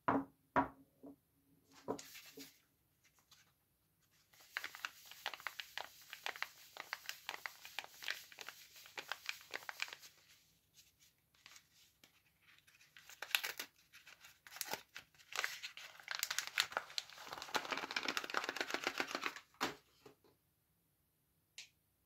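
Paper wrapper being peeled and torn off a bar of soap by hand: dense crinkling and tearing that comes in two long spells with a pause between them. It opens with a few short knocks as a soap bar is picked up from the pile.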